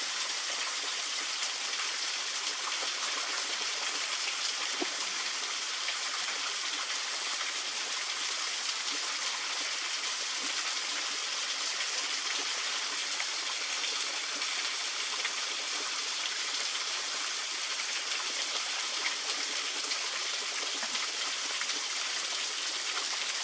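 Small waterfall spilling down a rock face: a steady, even rush of falling water.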